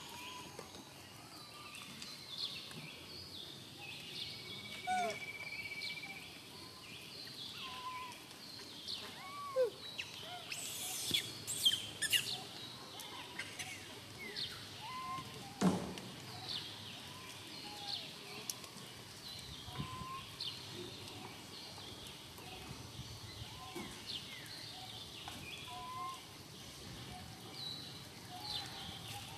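Outdoor ambience full of short chirping and whistled animal calls scattered throughout, with a steady high trill lasting a couple of seconds a few seconds in and a single sharp knock a little past halfway.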